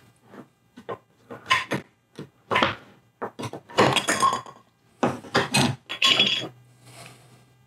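Putty knife scraping and knocking against the inside of a metal tin of universal polyester putty as putty is dug out: a quick run of short scrapes and clinks, ending with a softer scrape near the end.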